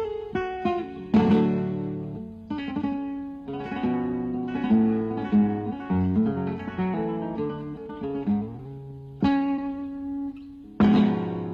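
Background music on acoustic guitar: sharp strummed chords with runs of plucked notes between them.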